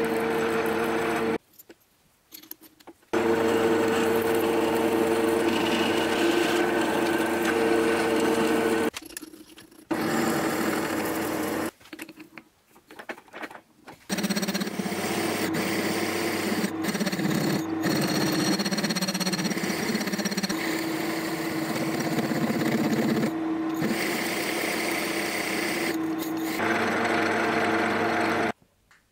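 Manual milling machine's spindle and gear train running with a steady whine while drilling into a welded metal bracket with a twist drill, a hole saw and a step drill. It comes in several stretches broken by short silences.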